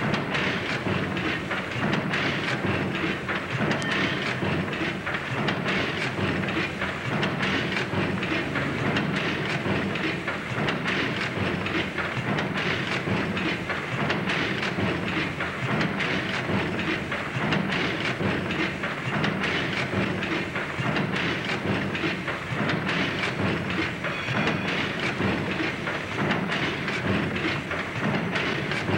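Large horizontal cross-compound steam pumping engine running at a steady pace. Its valve gear and running parts give a dense, even clatter over a hiss of steam.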